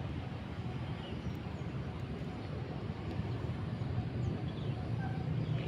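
Steady outdoor background noise with a constant low rumble and a few faint, brief high chirps.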